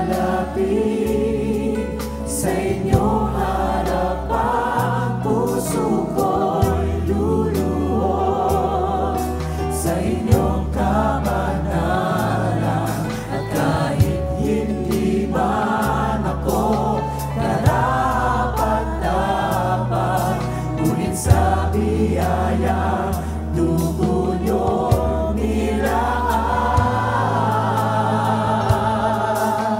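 Contemporary Christian worship song sung live: a man's lead vocal over a band, with long held bass notes and regular drum strokes, and many voices singing along.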